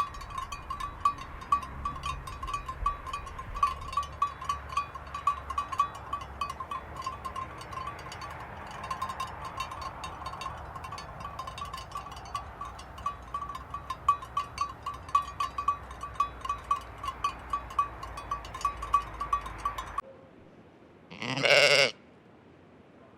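A sheep bleats once, loudly, near the end. Before it runs a steady, rapidly pulsing high ringing tone with many sharp clicks over a low rumble, which cuts off abruptly shortly before the bleat.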